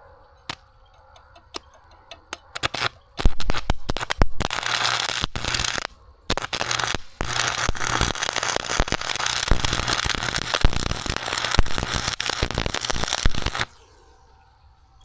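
Electric arc welding on heavy steel plate. A few short arc strikes come in the first three seconds, then a steady crackling weld of about ten seconds, broken briefly near six seconds, stops suddenly near the end.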